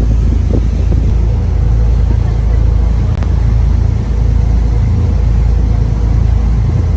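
Steady low rumble of a tour boat's engine underway, mixed with wind buffeting the microphone.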